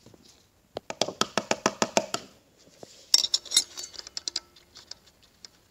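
Metal transmission parts clicking and clinking as a new washer is worked into place by hand inside a TH350 case: a quick run of about a dozen light clicks, then a louder cluster of clinks with a brief metallic ring.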